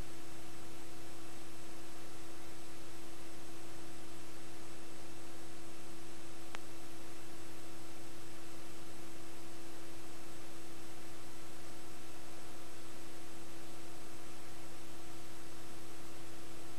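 Steady electronic hiss with a constant hum tone and a few fainter steady tones above it: an empty audio track carrying only noise, no game sound. One faint click about six and a half seconds in.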